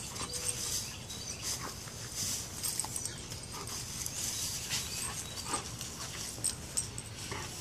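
Dry pine straw rustling and crackling in short, irregular bursts as a Bernese mountain dog noses and tugs at a straw bale.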